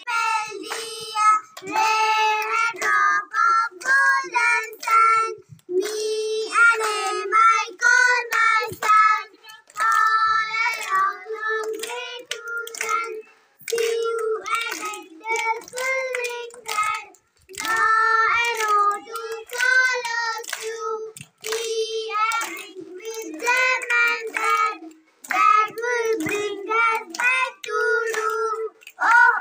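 Young children singing together, a song sung in short phrases with brief breaths between them.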